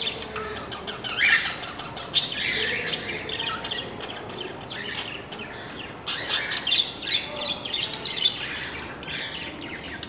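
Budgerigars chirping and chattering, many short warbling calls overlapping without a break.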